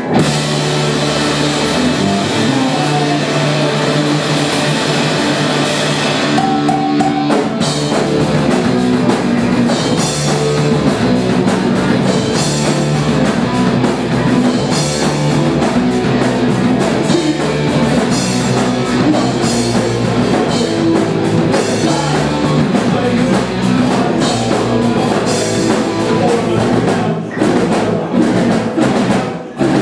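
A rock band playing live: electric guitars over a drum kit, dense and loud. Near the end, the playing breaks into a few short stop-start hits.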